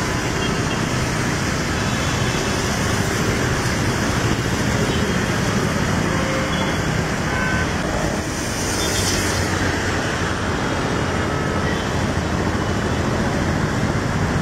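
Steady traffic noise from a jam of vehicles on a waterlogged road: engines running and tyres swishing through standing water, an even wash of sound.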